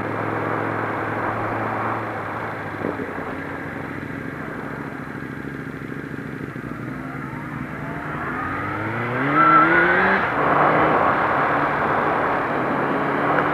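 Motorcycle engine, a Suzuki GSX-R 750 inline-four, heard from the rider's helmet. It runs at low revs while rolling along, then revs up with a rising pitch about eight seconds in and falls back sharply just after ten seconds. Steady wind rush on the helmet follows.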